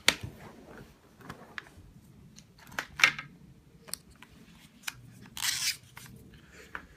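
Scattered light clicks and taps from handling a smartwatch and its packaging, the sharpest about three seconds in, with a short rustle a little later.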